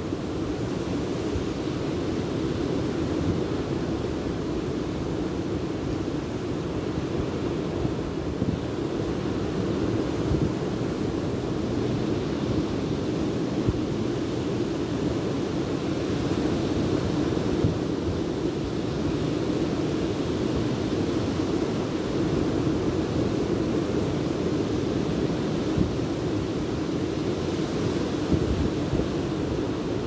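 Surf breaking on a sandy beach, a steady rushing wash of waves, with wind blowing over the microphone.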